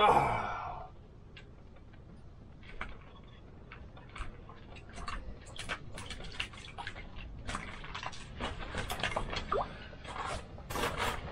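Handling and movement noises in a pop-up ice shelter: a short loud burst falling in pitch right at the start, then a run of irregular clicks and scuffs from about five seconds in as the angler gets up from his seat to a bite.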